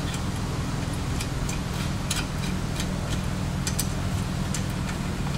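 Scattered light clicks and taps of scooter handlebars being fitted into an SCS compression clamp, over a steady low hum.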